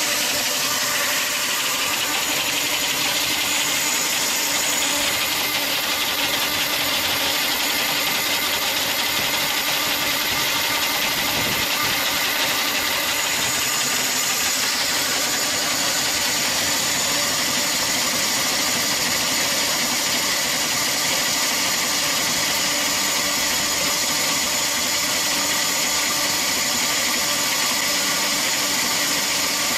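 Chainsaw mounted on a wheeled carriage running steadily at an even pitch as its bar cuts down through a large log.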